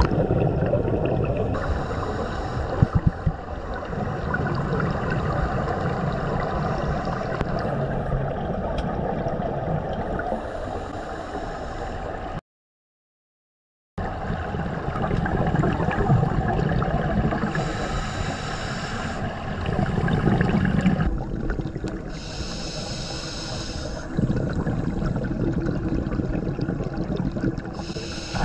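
Underwater sound of scuba diving: a steady rushing, gurgling water noise with several louder bursts of exhaled regulator bubbles in the second half, broken by a short silent gap about halfway.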